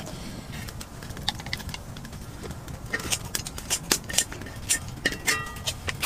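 Pork belly frying on a griddle pan over a camping gas stove: fat crackling and popping in sharp, irregular ticks that come thicker from about halfway through, over a low steady rush.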